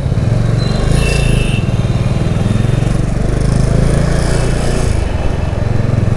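Motorcycle engine running steadily at low speed in slow traffic, a constant low throb with a slight change in its note about five seconds in.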